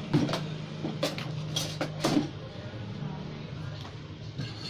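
Utensils clinking against dinner plates and a glass, with several sharp clicks in the first two seconds, over a steady low hum.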